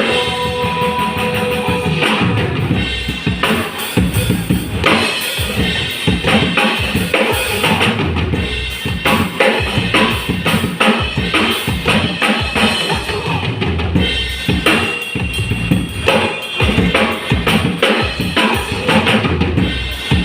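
Drum kit played live in a fast, dense pattern of kick-drum and snare strokes, with cymbals ringing over them.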